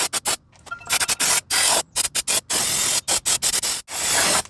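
Aerosol cleaner hissing from a spray can aimed into a GY6 scooter's open CVT transmission case. It starts as a rapid run of short squirts, then comes in several longer sprays of about half a second each.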